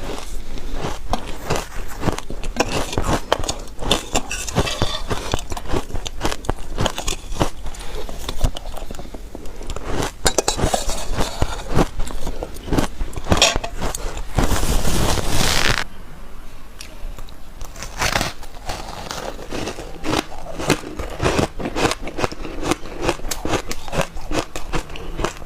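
Soft shaved ice being bitten and chewed: a dense, continuous run of crackling crunches, louder and thicker for a couple of seconds a little past the middle.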